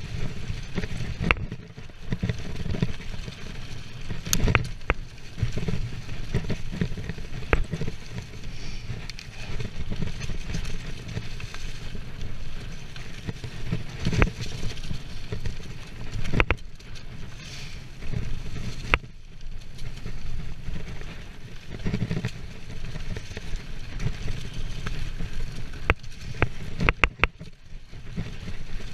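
Mountain bike descending fast on a dirt trail strewn with dry leaves: a constant rumble of wind on the microphone and tyres rolling over the ground, broken by sharp clicks and knocks as the bike rattles over bumps.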